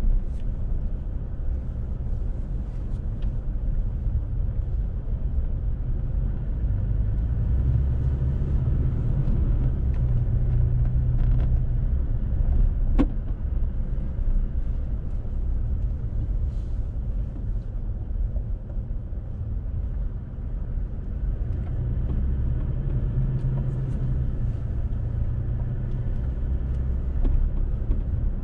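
Car driving slowly, heard from inside the cabin: a steady low engine and tyre rumble that swells twice, with a single sharp click about halfway through.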